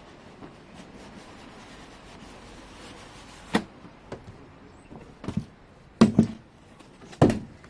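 Handling noise: a few light knocks and taps, in ones and pairs, starting about halfway through, over a faint hiss.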